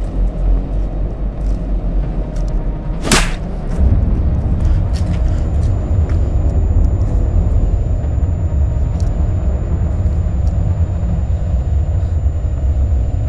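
A steady low rumbling drone that grows louder about four seconds in, with one sharp whoosh just after three seconds.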